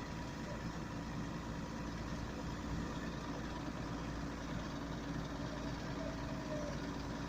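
A vehicle engine running steadily while its operator lowers a section of center-pivot irrigation pipe.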